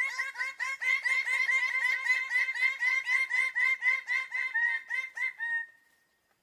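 A bird calling a fast run of short, repeated notes, about five a second, ending on a slightly longer note and then stopping.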